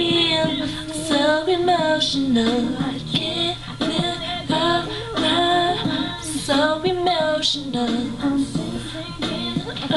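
Music with a female voice singing.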